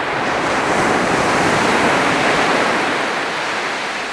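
Ocean surf on a beach: the rush of a wave swells to its loudest about two seconds in, then slowly falls away.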